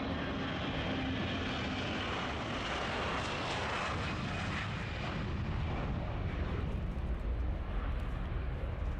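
Airbus A340's four jet engines at takeoff thrust as the airliner rolls past and lifts off: a broad rushing jet noise that is brightest about three to four seconds in, then gives way to a deeper rumble as it climbs away.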